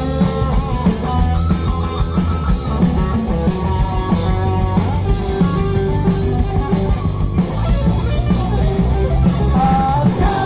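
Rock band playing live with guitar and a drum kit in an instrumental passage of a song.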